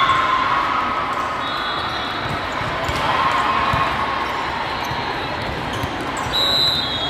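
Echoing din of a large sports hall full of people, with a few sharp thuds of volleyballs hitting the floor or hands. A couple of short high-pitched tones sound about two seconds in and again near the end.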